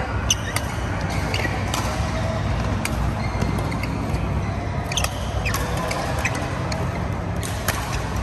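Badminton rally: sharp pops of rackets striking the shuttlecock about every one to two seconds, with short squeaks of shoes on the court mat, over a steady low hum of the hall.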